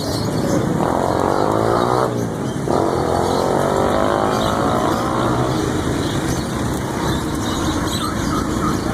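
Street traffic: motor vehicle engines going by over a constant rumble, two of them passing with their pitch sliding down.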